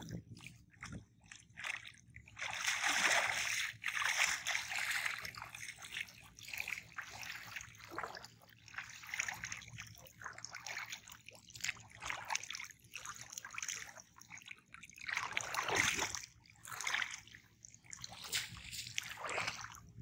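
Shallow river water sloshing and splashing irregularly as a man wades and handles a cast net, with a louder splash about three-quarters through as the net is thrown onto the water.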